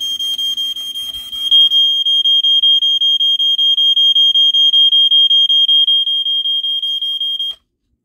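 Piezo horn of a 1983 Gateway Scientific 'Smokey Stover' 4001 ionization smoke detector, sounding a high-pitched tone in a fast pulse pattern rather than a continuous tone. It is a false alarm set off as soon as the battery goes in, with no smoke present. It grows louder about a second and a half in and cuts off suddenly near the end.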